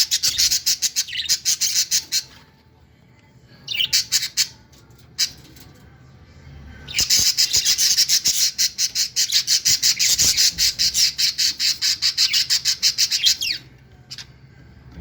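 Budgerigar chicks giving rapid, raspy begging calls in three bouts, about ten calls a second: a short run at the start, a brief burst near four seconds, and a long run from about seven seconds to near the end.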